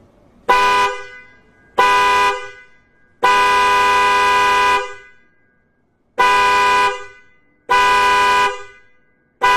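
A pair of Hella Fury 12 V snail horns sounding together as a two-note chord, honked in a series of blasts: two short toots, a long blast of about a second and a half, two shorter ones, and another beginning at the end.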